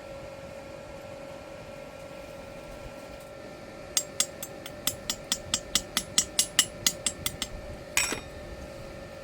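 A quick run of light, sharp taps, about five a second for some three and a half seconds, as from a small hammer or tool striking metal in a workshop, followed by one louder short scrape or knock, over a steady faint hum.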